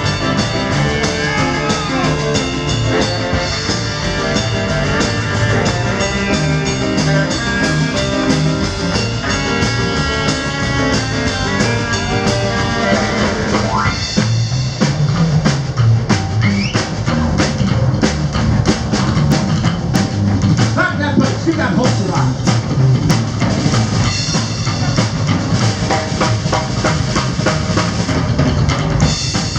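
Live rhythm-and-blues band playing an instrumental passage: saxophones riffing over upright bass, piano and drums. About halfway through the sustained horn lines thin out and the drums come forward.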